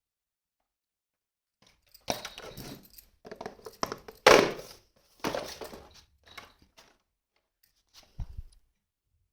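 Plastic toy kitchen pieces and their packaging being handled: a string of separate knocks, clicks and crinkly rustles starting after about two seconds, the loudest about four seconds in, with a duller thud near the end.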